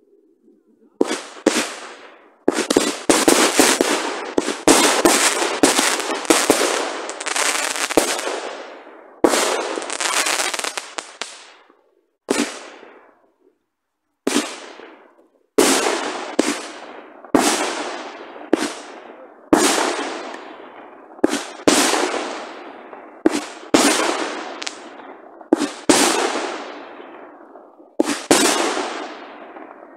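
Aerial fireworks bursting overhead: sharp bangs, each dying away over a second or two. They come thick and fast for the first ten seconds or so, then after a short pause follow at about one a second.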